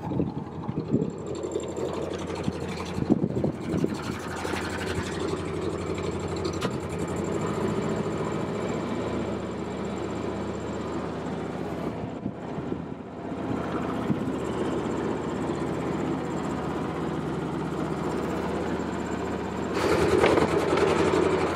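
Sailboat's auxiliary engine running steadily in reverse to set the anchor, getting louder near the end.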